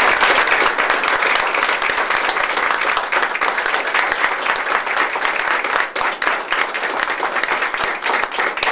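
A roomful of people applauding, many hands clapping at once; the clapping thins slightly toward the end, with single claps standing out more.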